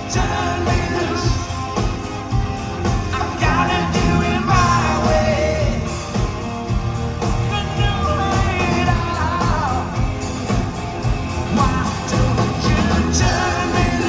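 Live rock band playing a song with a male lead singer over a steady drum and bass beat, heard loud through the venue's PA from within the standing crowd.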